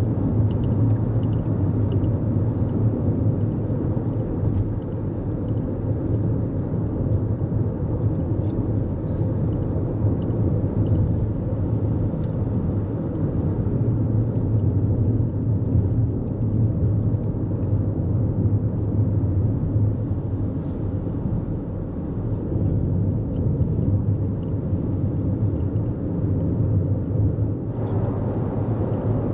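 Steady low road rumble and tyre noise from a 2024 Toyota Corolla Cross cruising at highway speed, heard from inside the car. The noise turns a little hissier near the end.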